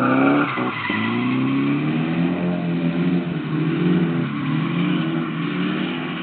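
Turbocharged SR20DET four-cylinder of a drifting Nissan 240SX at high revs. The revs climb sharply, dip about half a second in, then hold high and wavering as the throttle is worked, easing off near the end. Tyres squeal and hiss under the slide.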